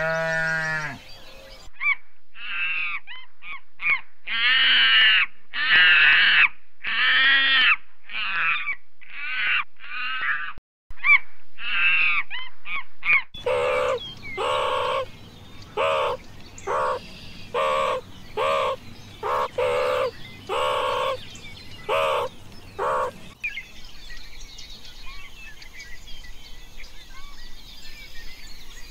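Repeated animal calls in two runs. First a string of high calls that rise and fall in pitch, then about ten lower calls at even spacing. After that, faint birdsong over background noise.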